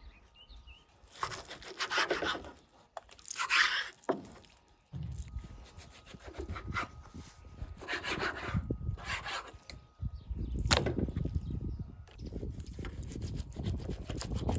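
A knife sawing back and forth through raw pork ribs on a wooden cutting board, in repeated strokes from about five seconds in, the blade rubbing against meat and wood. Before that, two short bursts of rustling noise.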